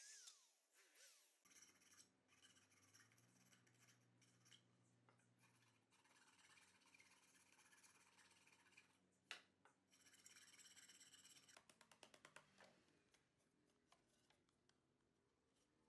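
Faint rasping and scraping of a hand file on plywood, working the edges of a square hole cut in a plywood disc. A quick run of short file strokes comes near the end.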